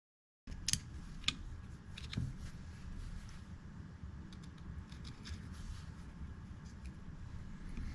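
Small sharp metallic clicks and ticks from handling the parts of a pocket knife and small tools during reassembly, the loudest in the first two seconds, over a low steady hum.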